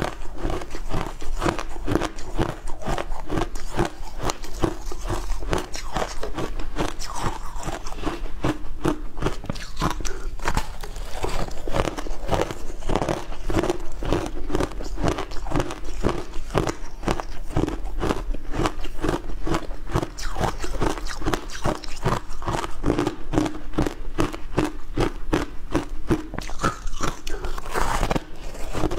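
Close-miked biting and chewing of packed shaved ice topped with passion fruit: a continuous run of crisp crunches, several a second.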